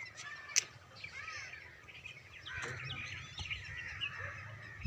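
Several small birds chirping, many short arched calls overlapping one another. A single sharp click sounds about half a second in.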